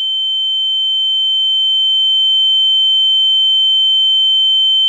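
A loud, steady, high-pitched electronic tone held at one pitch, with no change throughout.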